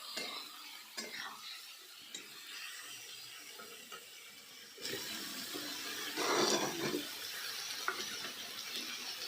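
Food cooking in a hot pan, a steady sizzle with a few clicks of a utensil, which turns into a louder hissing rush about five seconds in.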